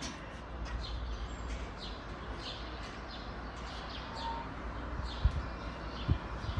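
Harbor Breeze Valdosta caged ceiling fan running at medium speed, a steady low rush of motor and moving air. Birds chirp repeatedly over it, and two dull thumps come near the end.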